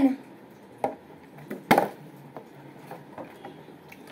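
A partly water-filled plastic Bisleri bottle thuds onto the floor as it is flipped, with the loudest knock a little under two seconds in. Around it are a few lighter knocks and taps as the bottle is handled and tossed.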